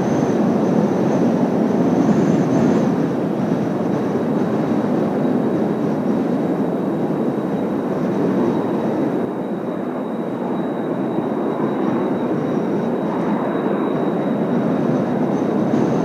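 Kawasaki T-4 jet trainers' turbofan engines heard at a distance: a steady rumble with a thin high whine over it, easing a little about nine seconds in.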